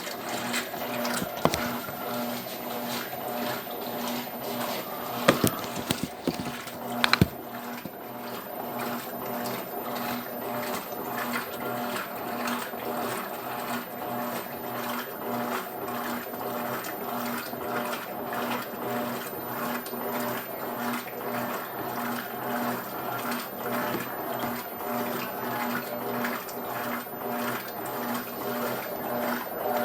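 Electrolux Turbo Economia 12 kg washing machine running, a steady rhythmic mechanical pulse repeating about once or twice a second, with water. A few sharp clicks come about five to seven seconds in.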